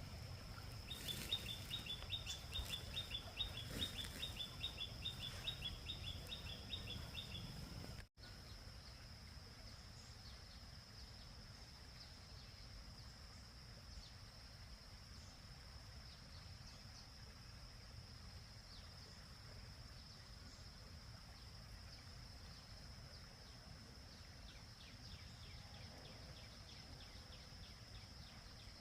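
A bird calling in a fast run of high chirps, several a second, for about six seconds, over a steady high-pitched insect drone. After a brief dropout near eight seconds only the insect drone and faint outdoor ambience remain.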